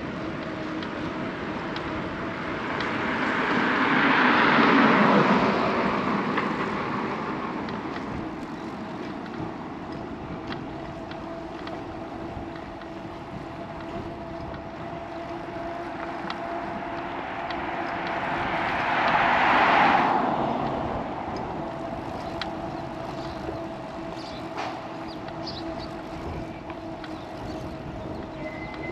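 Two motor vehicles pass a moving bicycle, each swelling up and then fading away, the first about a sixth of the way in and the second about two-thirds of the way in, where it drops off quickly. Between the passes there is a steady hum and rushing noise from the ride.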